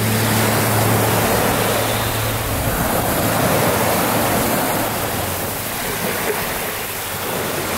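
Sea surf washing up a pebble beach, a steady rush of breaking waves. A low note left over from the music fades out about a second in.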